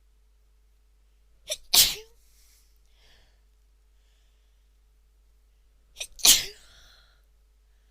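A woman sneezing twice, about four and a half seconds apart. Each sneeze starts with a brief catch just before the loud main burst.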